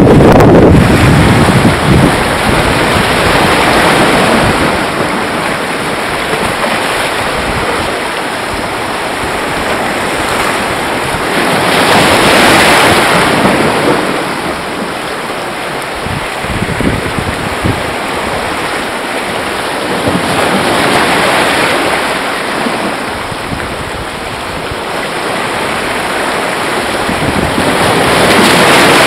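Sea surf washing over shoreline rocks, swelling and easing in slow surges every several seconds, with wind buffeting the microphone.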